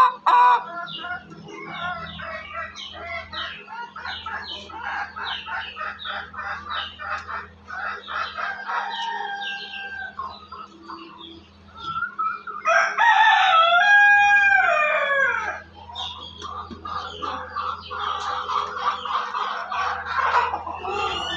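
Ayam Cemani chickens clucking in a steady run of short calls, with one long rooster crow about halfway through.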